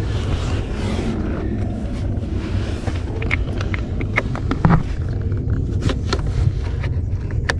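Small plastic caps clicking and knocking as they are pushed by hand onto the accelerator pedal assembly's mounting bolts, a cluster of short clicks in the second half, over a steady low rumble.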